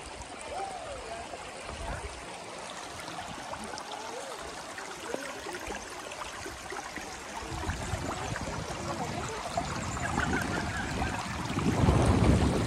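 Shallow river water trickling and babbling over stones, with a low rumble building over the last few seconds.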